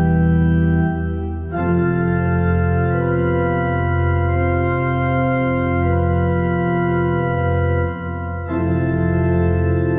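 Sampled organ from ProjectSAM's free orchestra plugin playing slow, full sustained chords with a deep bass. The chords change about a second and a half in and again near the end.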